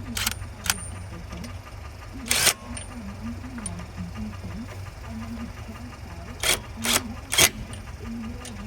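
A small motor running steadily with a low hum and a wavering drone, broken by six short, sharp hisses: two near the start, one at about two and a half seconds, and three close together near the end.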